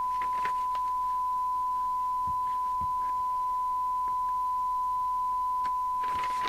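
Steady 1 kHz test tone from the CB receiver's audio output: the signal generator's modulation, demodulated by the receiver during sensitivity and SINAD checks.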